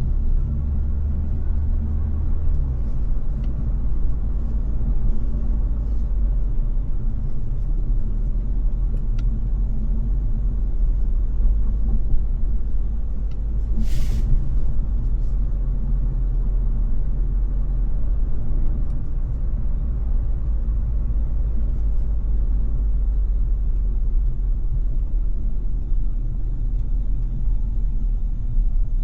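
Steady low rumble of a car driving in dense city traffic: engine and road noise. About halfway through comes a short, sharp hiss.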